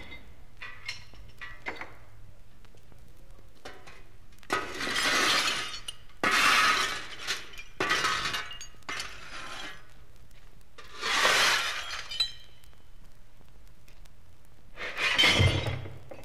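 Shovel scooping and tossing scrap metal: a series of about six crashing, jangling dumps a second or two apart, each lasting about a second.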